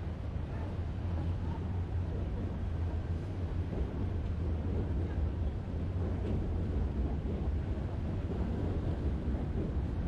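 Outdoor street ambience: a steady low rumble under an even hiss, with no distinct events.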